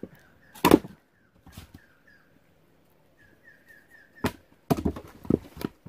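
Chunks of sawn firewood log thrown onto a woodpile, landing with a heavy wooden thud about a second in. Near the end comes a run of wooden knocks and clatter as logs are stacked. In between, a faint high chirp repeats about three times a second.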